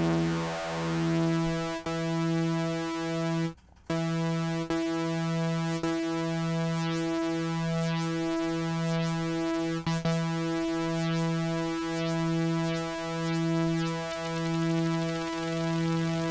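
Korg Volca Keys analog synthesizer holding one low note, its tone pulsing steadily a little under twice a second under the LFO's modulation. The note cuts out briefly about three and a half seconds in, then carries on pulsing.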